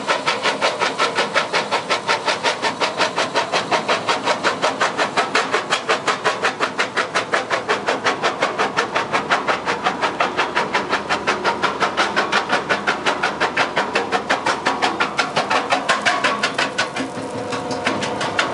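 MB BF70 crusher bucket running, its jaw crushing rock with a fast, even clatter of about five strokes a second over a steady machine hum. Near the end the clatter stops for a second or so, leaving the hum, then starts again.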